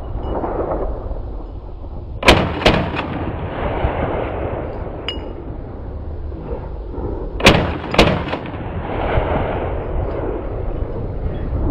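Rifle shots from a VULKAN-M AK-pattern bullpup rifle: two quick pairs, each pair about half a second apart, the first about two seconds in and the second about seven and a half seconds in.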